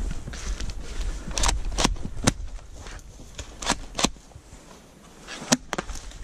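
A handful of separate sharp snaps and clicks over rustling and handling noise in dry leafy undergrowth.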